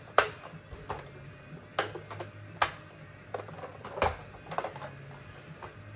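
Hard plastic clicks and knocks from a Driven toy tow truck being handled: a sharp click just after the start, then scattered clacks about once a second. A faint steady low hum runs underneath.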